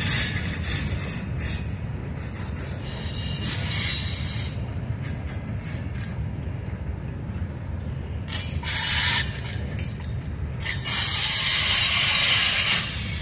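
Freight cars rolling past on the rails with a steady low rumble. Twice, about two thirds of the way in and again near the end, a louder high hissing screech rises over it, like wheel squeal.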